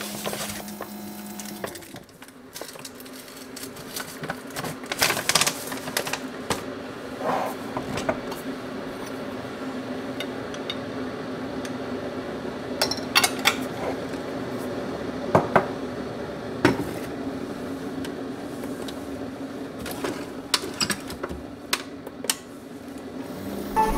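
Clinks and knocks of a spoon, jars and a mug on a kitchen counter, over a steady low hum from a single-serve pod coffee maker that has been switched on, starting about two seconds in.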